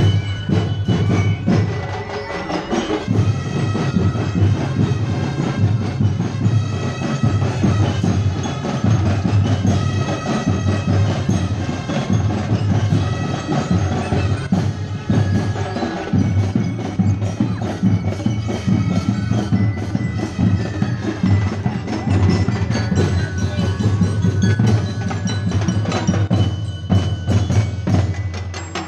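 Marching drum and lyre band playing: metal bell lyres ringing a melody over the beat of bass drums and other percussion.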